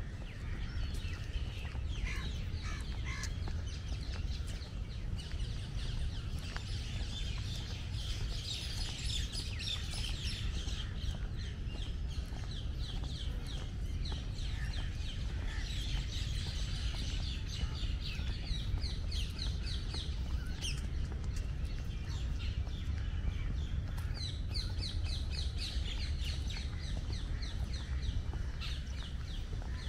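Birds chirping and calling throughout, many short notes in quick runs, over a steady low rumble.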